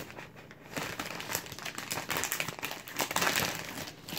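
Plastic snack packet crinkling in the hands in several irregular bursts as stuck-together strips of dried roasted squid are pulled out of it.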